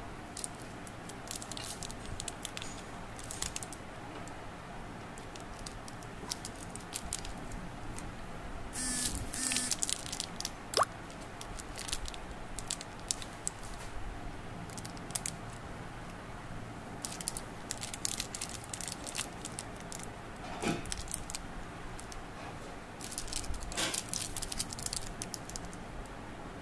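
Plastic candy wrappers crinkling and rustling as wrapped jelly candies are handled and set down one by one, in short clusters of crackling with quieter gaps between.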